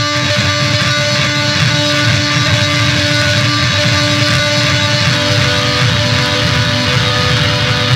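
Loud, dense noise music: a distorted wall of sound with a few held tones over it, starting just before and holding steady.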